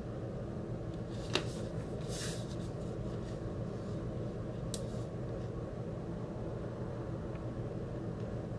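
A steady low background hum, with a few brief rustles and clicks as a cardboard LP lyric sheet is handled, the clearest about a second and a half in and near the middle.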